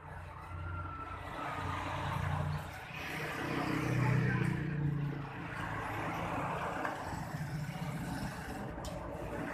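A motor vehicle engine running, growing louder toward the middle and then holding steady.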